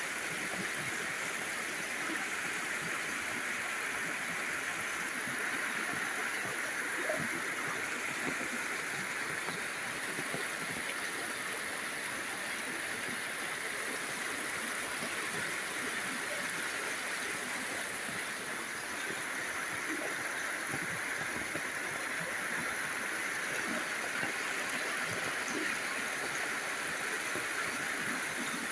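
Monsoon rainwater flowing, a steady, even rush of water that does not let up.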